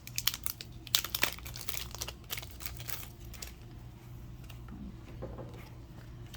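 Trading-card booster pack wrapper crinkling and tearing as it is pulled open from the bottom at a heavily glued seam. A quick run of sharp crackles fills the first three seconds or so, then the handling goes quieter.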